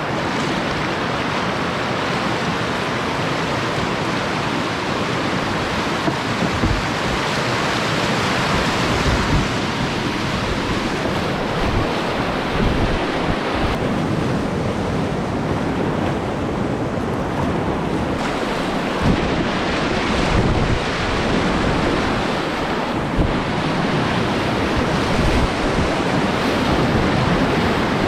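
River whitewater rushing through a rapid, a steady loud roar with irregular splashes, and wind buffeting the microphone.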